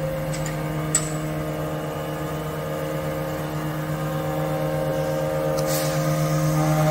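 Rulong overhead router's spindle motor running steadily while idle, not yet cutting. There is one short click about a second in and a brief hiss near the end.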